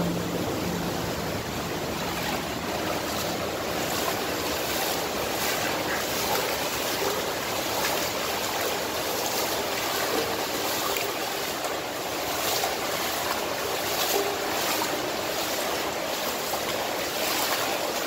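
Steady rush of flowing water inside a concrete culvert tunnel, with occasional footsteps on the wet floor.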